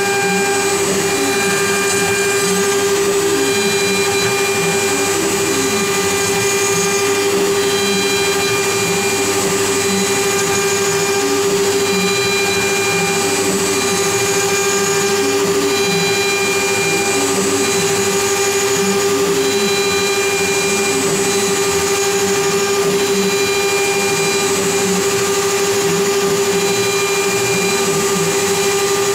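Wood-carving CNC router running: the spindle router holds a steady whine as its bit cuts a relief into a wooden panel. Under it, lower tones rise and fall in pitch as the machine's axes move.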